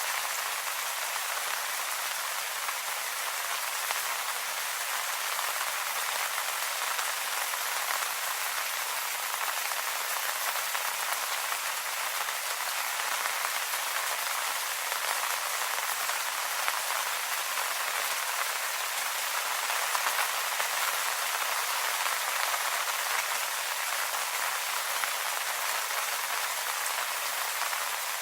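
Steady rain falling on leaves: an even hiss of many small drops pattering without let-up.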